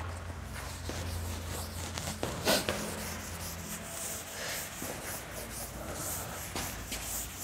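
Felt chalkboard duster wiping chalk off a blackboard in repeated rubbing strokes, with one sharp knock about two and a half seconds in.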